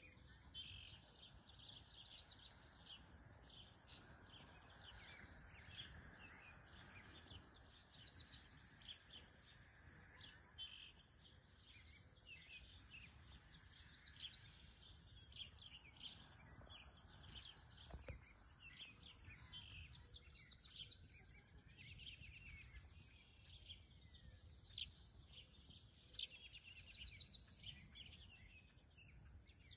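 Faint birdsong: a small bird's high trilling song phrase repeats about every six seconds, with scattered chirps between. Two brief soft knocks come a few seconds before the end.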